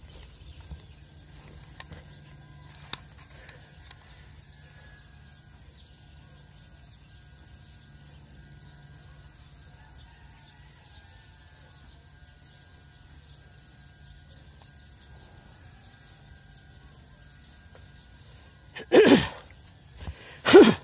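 Quiet outdoor ambience with a steady high-pitched buzz. It is broken near the end by two loud brushing noises about a second and a half apart.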